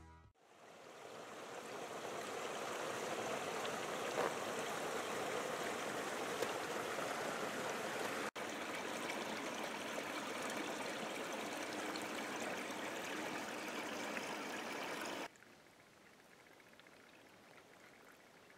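Small creek running open between snow and ice: a steady rush of flowing water that fades in at the start. About fifteen seconds in it drops suddenly to a faint background hush.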